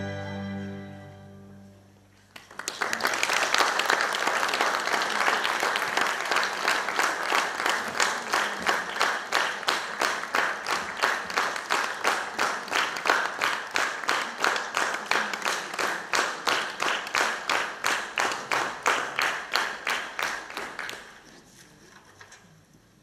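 A string quartet's last held chord dies away, then the audience breaks into applause that settles into rhythmic clapping in unison, stopping fairly quickly about two seconds before the end.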